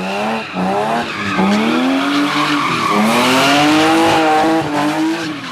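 Car engine revving up and down in long rising-and-falling sweeps, with tyre squeal over it, as the car slides through a drift.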